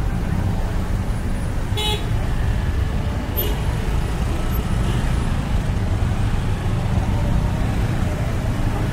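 Dense street traffic of motor scooters and cars moving slowly, a steady engine rumble, with a short horn beep about two seconds in and a fainter one a second and a half later.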